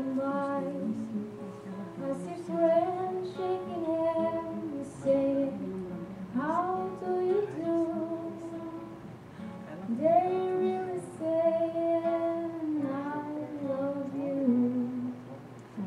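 A young woman singing a slow melody into a microphone to acoustic guitar accompaniment, holding long notes and scooping up into new phrases about six and ten seconds in.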